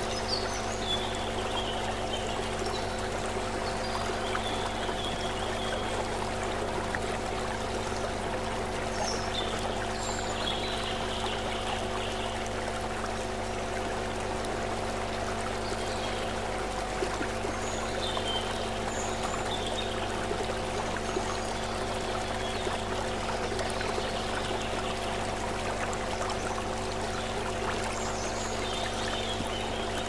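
Shallow stream running over rocks: a steady rushing and trickling of water. Under it, a low steady hum of several held tones.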